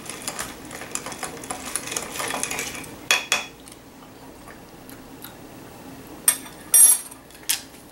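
A small metal spoon stirring a drink in a glass mug, clinking against the glass in quick, irregular clicks for the first three seconds or so. A few sharper clinks come near the end.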